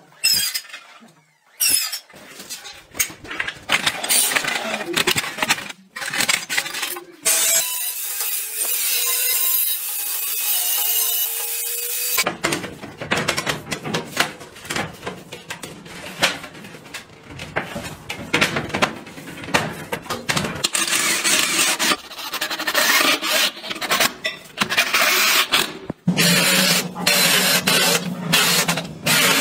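Wooden stair-railing parts being cut, fitted and fastened: a string of knocks, scrapes and rubbing, with a power tool running steadily for about five seconds partway through. Near the end a power driver runs as screws go in to fix the balusters.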